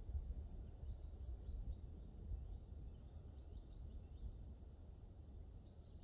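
Wind rumbling on the microphone, with faint, scattered bird chirps in the background.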